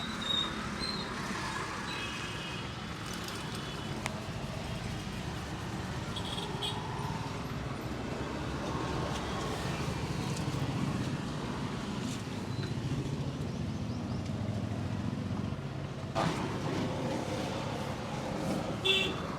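Steady roadside traffic noise, with a few brief high-pitched tones and a single sharp knock near the end.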